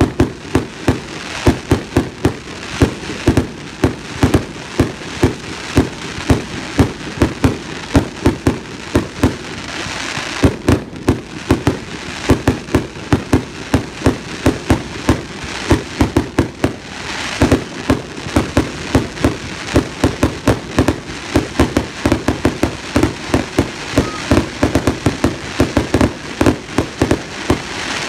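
Fireworks display: a rapid, steady barrage of aerial shells bursting, about three sharp reports a second over a continuous hiss.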